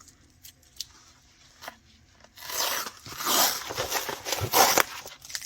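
Packaging being opened by hand: a few light clicks, then about two and a half seconds of loud crinkling and tearing.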